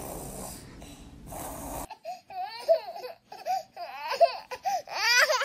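A baby crying in a run of short whimpering cries that rise and fall in pitch, starting about two seconds in and growing louder near the end. Before the cries there is only faint hiss.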